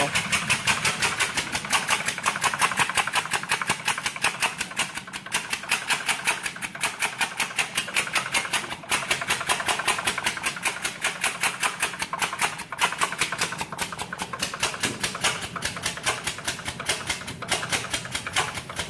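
Two-stroke weed-eater engine converted to run on compressed air, running steadily at about 60 PSI: each stroke knocks its slam valve open, giving a rapid, even clacking of air puffs.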